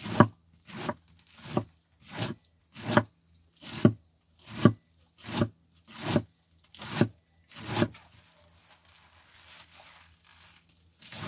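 Hand food preparation in a kitchen: a steady run of about eleven short strokes, roughly one every three-quarters of a second, that stop about eight seconds in and start again near the end.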